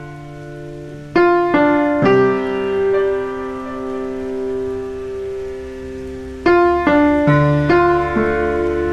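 Background piano music: slow notes and chords struck and left to ring, with a few new notes coming in about a second in and again near the end.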